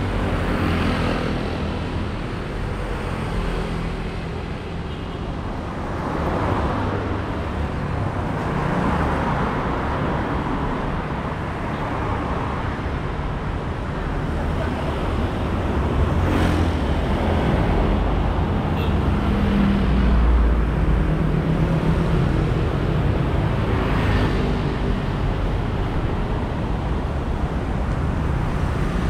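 Rush-hour road traffic on a city street: cars and motorbikes driving past close by, a continuous engine and tyre noise that swells as each vehicle goes by, loudest about two-thirds of the way through.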